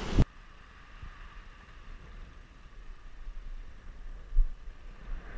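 Wind buffeting the microphone, cut off abruptly a fraction of a second in. After that only a faint low rumble remains, with one soft low thump about four seconds later.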